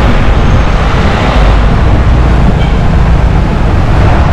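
Road traffic on a city street, with cars and motorcycles passing close by and heavy wind rumble on the microphone. The noise is loud and steady, heaviest in the low end.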